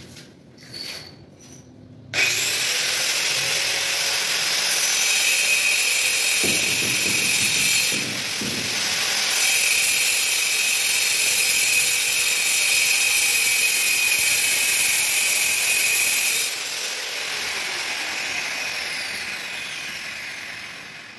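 An electric power tool starts suddenly about two seconds in and runs with a steady high whine over a harsh grinding noise, dipping briefly around eight seconds in. Near the end it is switched off and winds down, its pitch falling as it fades.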